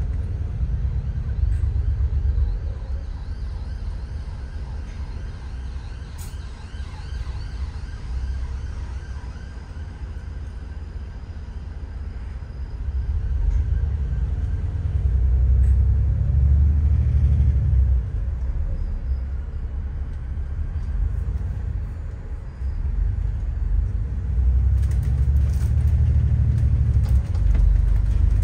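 Interior of a moving city bus: its engine and drivetrain rumble steadily, swelling and easing as the bus pulls away and slows in traffic, with a few sharp rattles or clicks near the end.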